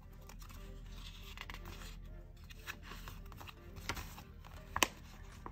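Soft background music, with a few light taps and rustles from sticker sheets being handled and letter stickers pressed onto a paper calendar. The sharpest tap comes near the end.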